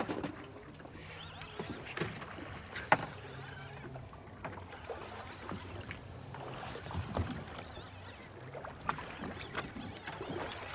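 Ambient sound aboard a fishing boat on open water: a steady wash of water with a broken low hum, and scattered clicks and knocks on deck, the sharpest about three seconds in.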